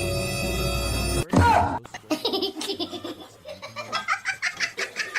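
Background music cuts off suddenly about a second in, followed by a loud short vocal cry and then laughter in quick repeated bursts.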